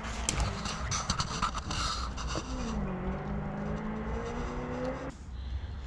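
Light clicks and knocks, then a vehicle engine's hum whose pitch dips and slowly rises, cutting off suddenly about five seconds in.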